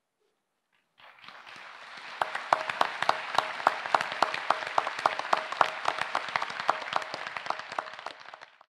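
Large audience applauding, with one pair of hands near the microphone clapping steadily at about four claps a second above the rest. The applause starts about a second in and fades out near the end.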